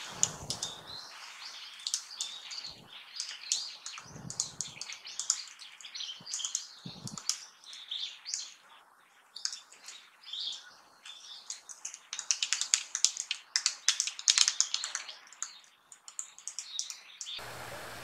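Japanese pygmy woodpecker calling in many short, sharp notes, which come thickest in a quick run two thirds of the way through.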